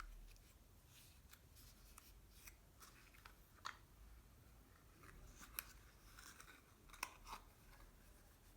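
Faint handling sounds from small packaging: a scatter of light clicks, taps and short scratchy rubs, with a few sharper clicks in the second half.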